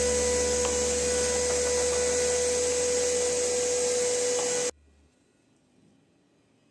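Electric drill running steadily with a whine while boring bolt-head recesses with a spade bit; it cuts off abruptly a little under five seconds in.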